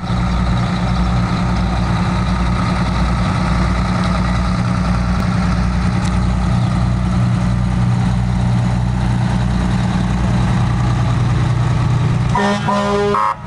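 Fire engine's diesel engine running with a steady low drone and rumble as the truck rolls slowly past. Near the end, a vehicle horn gives a few short blasts.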